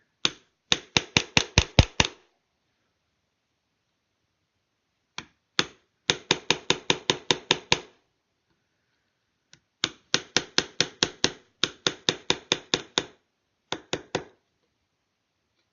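Small palm chisel being tapped into the wood of a rifle stock to cut an inlet line: four runs of quick, light, evenly spaced taps, about six a second, with short pauses between runs.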